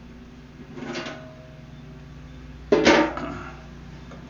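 Small portable propane grill being handled and set down: a light metal clatter about a second in, then a loud clunk with a brief metallic rattle just before three seconds.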